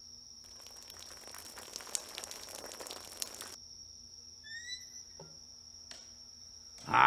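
Water spattering onto a wet cat for about three seconds, with small crackling drips through it, over a steady high-pitched whine. About four and a half seconds in, a short rising chirp.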